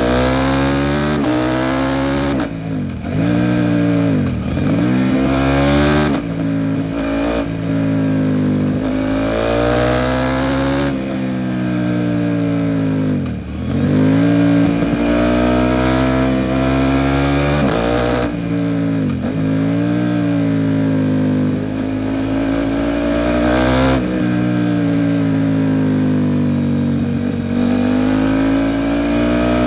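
KTM 790 Duke's parallel-twin engine through an Arrow Pro Race titanium exhaust, heard on board while riding. Its pitch climbs under acceleration and drops sharply at gear changes and when the throttle is closed, several times over.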